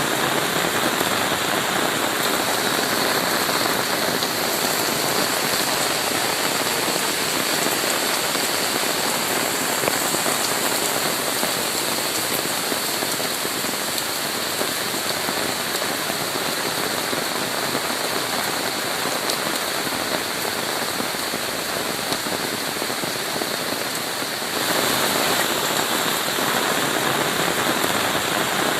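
Heavy rain falling steadily, a dense, even hiss of drops with no let-up, turning a little louder near the end.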